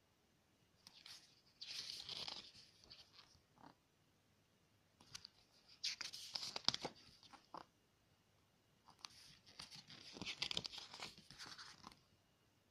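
Pages of a glossy album photobook turned by hand: three spells of paper rustling and flapping with small clicks, starting about one, five and nine seconds in, with quiet between them.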